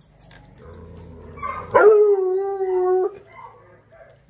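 American foxhound howling: one long held note, a little over a second, starting just under two seconds in after a quieter lead-in.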